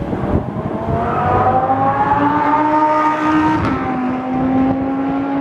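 Lamborghini Huracán's V10 engine accelerating on the track, its pitch climbing for a couple of seconds, dropping slightly at a gear change about three and a half seconds in, then holding, with wind buffeting the microphone.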